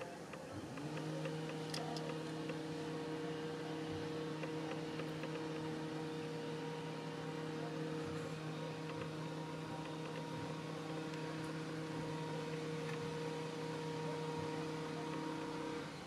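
Steady mechanical hum with a few even, unchanging tones from an unseen motor or machine, starting about a second in and cutting off near the end.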